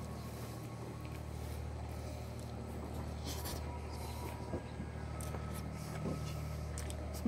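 Steady low hum of the boat's running machinery, with faint slurping and chewing of noodles close by.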